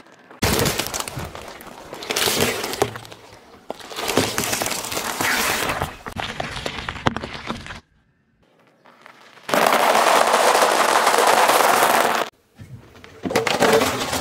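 A car tyre rolling over piles of food and crushing them, in several separate clips with short quiet gaps: gherkins squashing and crackling under the tread, then, loudest, a pile of small sweet peppers cracking and splitting. Another burst of crunching starts near the end.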